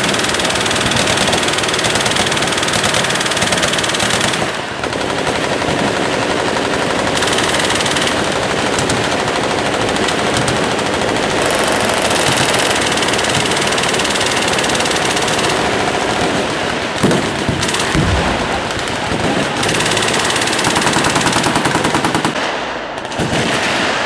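Many machine guns firing at once from a firing line: a continuous din of overlapping automatic bursts, dipping briefly about four seconds in and again near the end. A heavier thump stands out about seventeen seconds in.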